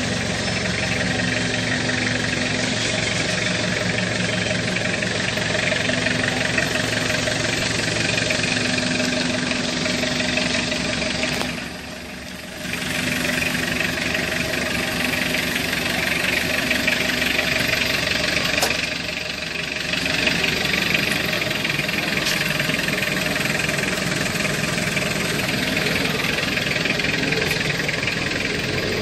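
A vehicle engine idling steadily, with a brief drop in level partway through.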